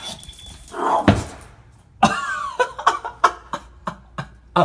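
A pug giving a quick run of short, cough-like snorts, about three a second.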